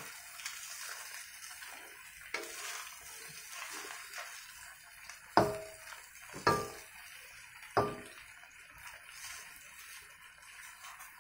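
Bean sprouts and pea shoots stir-frying in a stainless steel wok with a soft, steady sizzle, turned with a wooden spatula. The spatula knocks sharply against the wok four times, the loudest about five seconds in, each knock leaving a brief metallic ring.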